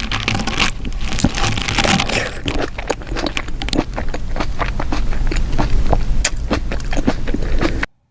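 Close-miked mukbang eating of saucy seafood boil: wet chewing, sucking and biting with a dense run of small clicks and crackles, cutting off suddenly near the end.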